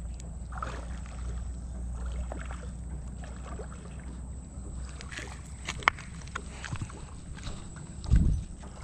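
Steady low wind rumble on the microphone, with small scattered clicks and rustles from fingers handling a fishing hook and bait. A louder low burst comes near the end.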